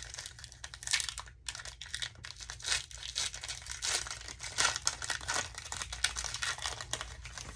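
Foil Pokémon TCG booster pack wrapper crinkling and tearing as it is handled and torn open, an irregular run of crackles.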